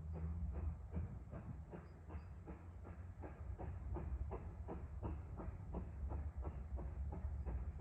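Train passing, its wheels clicking over rail joints in a steady rhythm of about three to four clicks a second over a low rumble.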